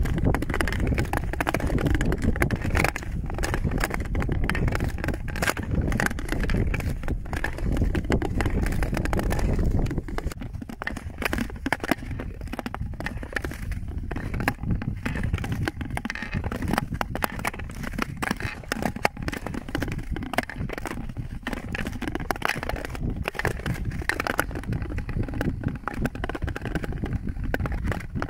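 Ice skate blades gliding and scraping over clear lake ice, a continuous crackling scrape with a low rumble underneath. It is louder for the first ten seconds, then quieter.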